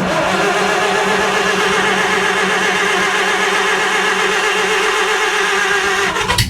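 Stihl two-stroke chainsaw just started from cold, running at a steady fast idle. Near the end the engine sound changes abruptly to a lower, rougher running.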